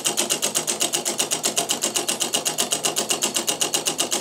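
Small homemade electromagnet engine running, its coils pulling on an iron plate and a cam-worked make-and-break switch with a graphite brush opening and closing the current each turn of the flywheel. It makes a steady, rapid clicking, about nine clicks a second.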